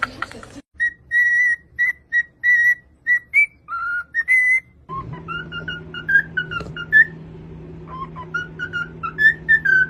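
Whistling: a string of short, clear, same-pitched whistled notes, then from about five seconds in a run of varied, sliding whistled notes over a steady low hum.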